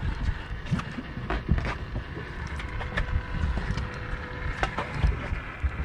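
Spinning reel being cranked to bring in a hooked fish, with scattered clicks and knocks of handling over a low wind rumble on the microphone.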